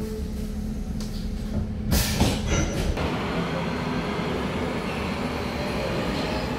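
Nuremberg U-Bahn train running along an underground platform as it pulls out, a steady rumble with some wheel squeal. A sudden burst of loud noise about two seconds in.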